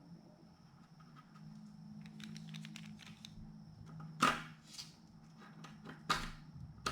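Small clicks and ticks of laptop parts and tools being handled during a touchpad swap, with two sharper, louder clacks about four and six seconds in.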